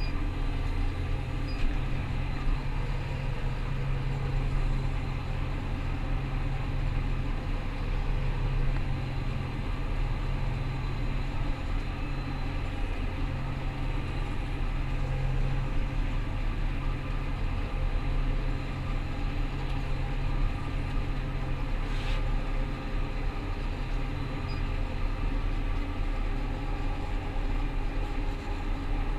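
Rostselmash Vector 425 combine harvester running, a steady low engine and machinery drone that holds constant throughout. A single brief click is heard about two-thirds of the way through.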